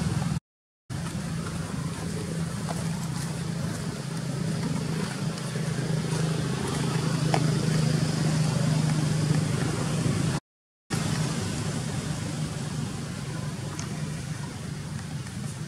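Steady low engine hum from a motor vehicle running, broken twice by brief dead silences.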